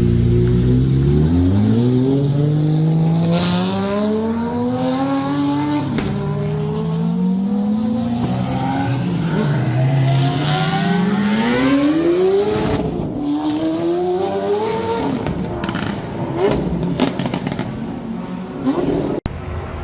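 A naturally aspirated supercar accelerating hard, its engine pitch climbing and dropping back at each upshift, about four times in a row. It then eases off, with a few sharp cracks near the end.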